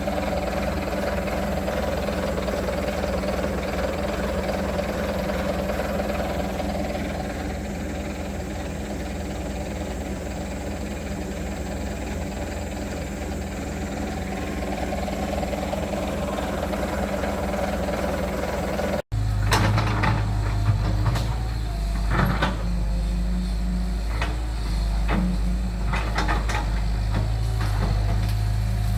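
Heavy road-building machinery running. A steady engine drone gives way, about two-thirds of the way in, to a louder, deeper engine with scattered metallic clanks.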